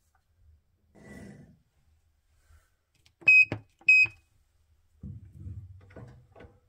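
Two short electronic beeps about half a second apart from the keypad of a lathe's digital readout (DRO), as it is set after the tool has been touched on the work surface. Faint low handling knocks and clicks follow near the end.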